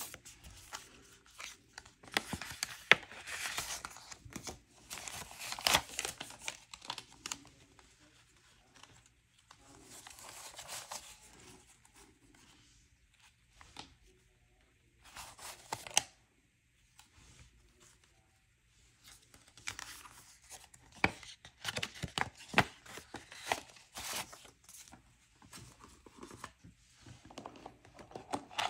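Paper cash envelopes and banknotes being handled as the bills are pulled out and counted: rustling and crinkling in short spurts with sharp crackles, broken by brief pauses.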